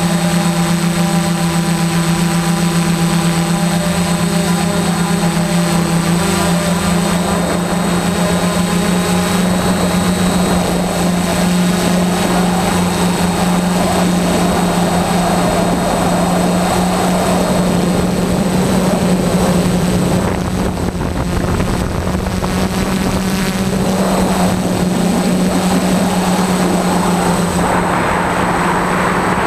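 DJI F450 quadcopter's four brushless motors and propellers buzzing steadily in flight, heard from the camera mounted on the aircraft. A rushing noise swells near the end.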